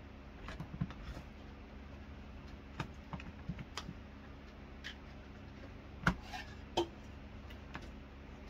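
Cat flap tapping and clicking irregularly as a kitten paws at it and pushes it open with its head, the flap knocking in its frame. The two loudest knocks come about six and seven seconds in.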